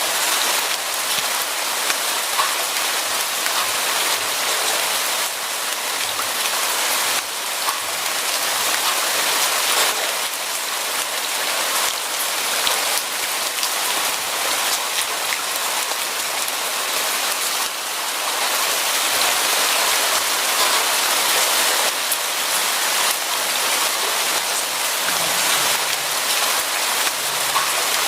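Steady rain falling on a surface, a dense hiss with many small drop ticks.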